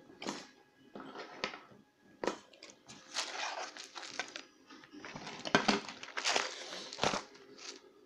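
Handling noise: scattered clicks, taps and brief rustles as metal lock picks and tension tools are set down on a work mat.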